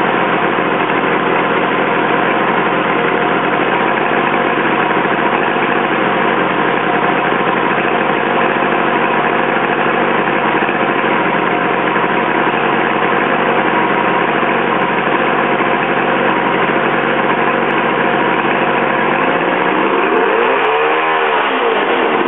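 Mercury 115 hp outboard motor running steadily in a test tank, its propeller churning the water. It is running cleanly after its carburettor floats were adjusted to stop it flooding.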